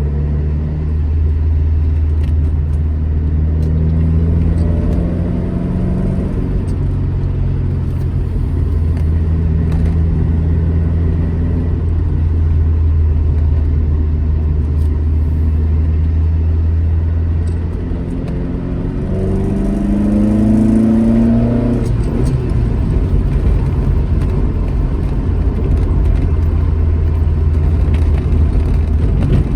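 Alfa Romeo GT Junior's twin-cam four-cylinder engine driving along at steady revs. About eighteen seconds in it eases off briefly, then the revs climb for a couple of seconds before it settles back into a steady run.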